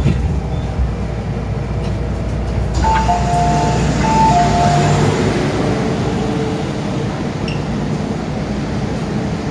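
Two-note electronic door chime of an MTR train, a higher and a lower beep sounded twice about three to five seconds in, warning that the doors are closing, over the steady hum of the train and platform bustle.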